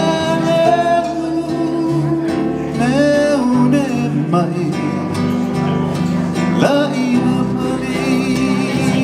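Live Hawaiian song: a man singing in Hawaiian with long held notes, over a strummed acoustic guitar and keyboard.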